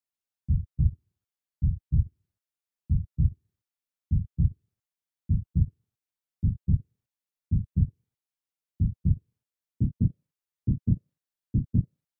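Heartbeat sound effect: paired low lub-dub thumps with dead silence between them, about one pair a second at first, quickening toward the end.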